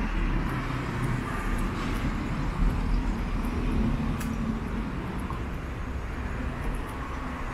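Road traffic noise, a steady low rumble of passing vehicles.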